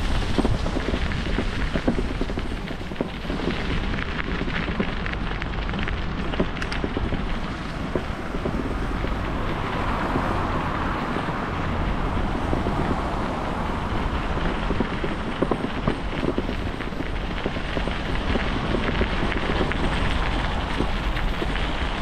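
Wind noise on the microphone of a camera riding on a moving bicycle, with the tyres crunching over a gravel path: a steady rush with a deep rumble and scattered small clicks.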